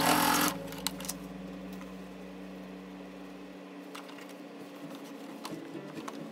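Electric sewing machine stitching in a short burst, then stopping. A low steady hum follows, with scattered light clicks and rustles as the fabric is shifted under the presser foot.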